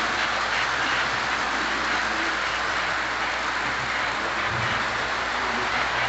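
Lionel O-gauge model freight train running: a steady rolling hiss and rattle of the cars' wheels on three-rail track.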